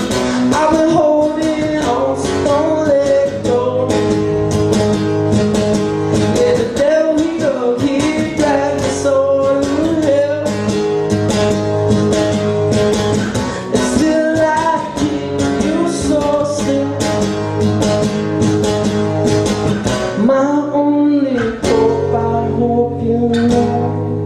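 Live song on a strummed guitar with a singer's voice over it.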